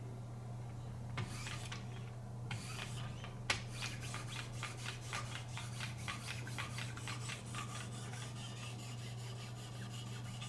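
Benchmade Pagan's blade being stroked up and down against a 30-micron abrasive on a Wicked Edge guided sharpener: short scraping strokes, sparse at first and then about four a second, over a steady low hum.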